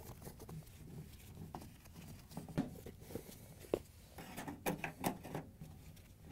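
Faint clicks and light scraping of a 1/4-inch nut driver turning screws into a refrigerator's sheet-metal rear access panel, with a few sharper metal ticks in the second half.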